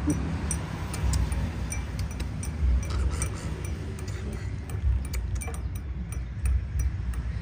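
A baby monkey chewing and smacking on a tangerine segment: small irregular clicks, several a second, over a low rumble.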